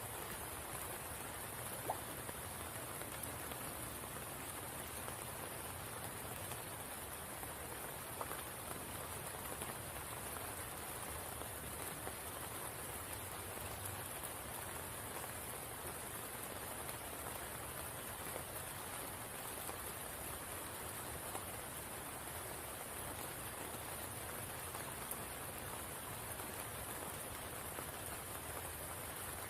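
Steady rain falling on water and leaves, an even hiss with a steady high-pitched band on top. A few louder single drops tap about two and eight seconds in.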